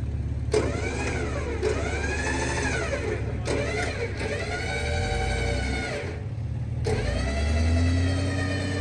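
A stuck 4x4 being driven in deep snow, its engine revving in several surges while the wheels spin, the pitch rising and falling with each push of the throttle. The revving breaks off about six seconds in, then climbs again.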